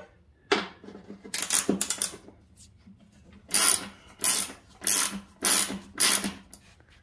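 Ratchet wrench clicking as it is worked back and forth on a mower-deck pulley bolt: a few uneven strokes early on, then five quick, even strokes a bit over half a second apart.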